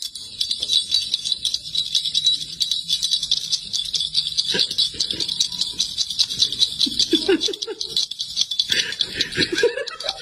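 A bright, jingly rattle shaken rapidly and without a break, with a few short voice sounds in the second half.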